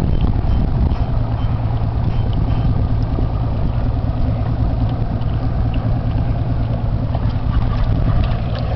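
Boat engine idling, a steady low hum that holds without change.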